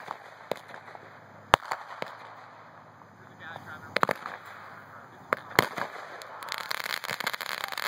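Fireworks cooking off in a gasoline-fed fire inside a cooler: irregular sharp bangs and pops over a steady crackle, with a thicker burst of crackling near the end.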